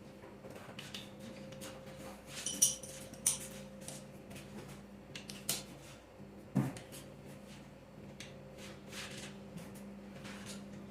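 Scattered clicks and knocks of hand tools and metal engine parts being handled, with a ringing metal clink about two and a half seconds in and a heavier knock a little past halfway. A faint steady hum runs underneath.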